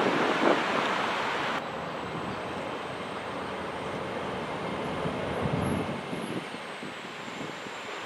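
A train running past with wind buffeting the microphone. The sound changes abruptly about one and a half seconds in, leaving a duller rumble with a faint high whine.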